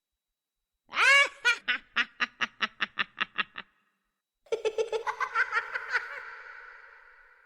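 Horror sound effect of a ghost's high-pitched cackling laugh: a fast run of laughing pulses for about two and a half seconds, then after a short gap a second cackle that fades out in a long echo.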